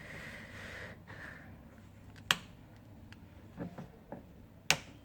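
Small tools clicking against a smartphone's parts during disassembly: two short, sharp clicks about two and a half seconds apart, with a few softer ticks between them.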